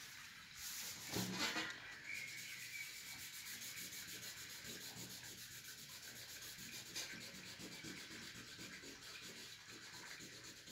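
Folded paper napkin rubbed lightly back and forth over charcoal on drawing paper, blending the shading: a soft, steady papery rubbing in short repeated strokes, a little louder about a second in.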